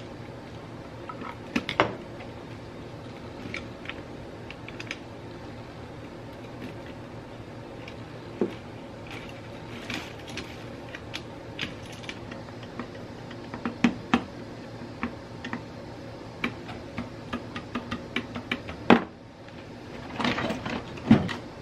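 Scattered small clicks and taps of hand-wiring: a screwdriver working the terminal screws of a wall switch and wires handled against its metal electrical box. The clicks come thicker in the last few seconds, over a steady faint hum.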